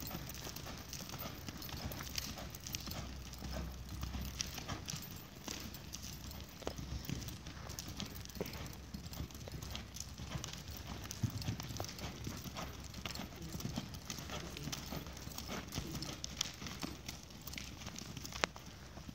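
Hoofbeats of a horse on soft dirt arena footing, an irregular run of dull thuds and clicks as it lopes and then slows to a walk.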